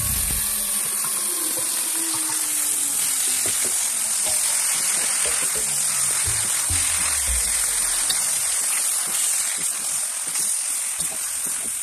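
Mushrooms with garlic and onion sizzling steadily in a hot wok, with a metal spoon stirring and scraping through them.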